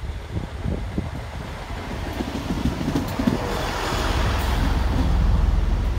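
Class 166 Turbo diesel multiple unit running into the platform, its rumble of engine and wheels growing steadily louder as it draws alongside.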